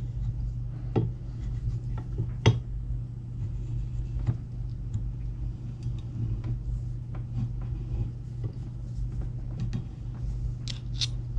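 Scattered metal clicks, taps and scrapes of a screwdriver and a wire retaining ring being worked into the groove of a hydraulic cylinder, with one sharp click about two and a half seconds in and a few more near the end, over a steady low hum.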